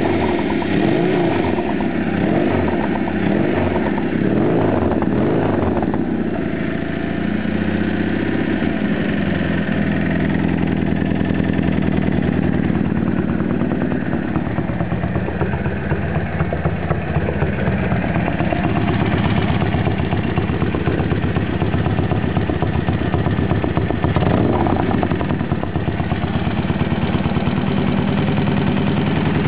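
Norton Commando parallel-twin motorcycle engine, freshly rebuilt with a balanced crank and new valves, running. Its revs rise and fall over the first several seconds, then it settles into a steady idle.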